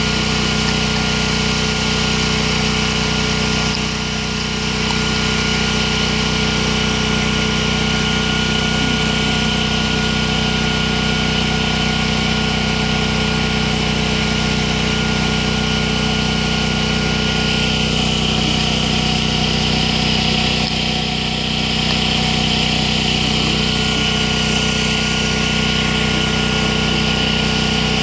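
Steady drone of an engine running at idle, dipping slightly about four seconds in and again around twenty-one seconds.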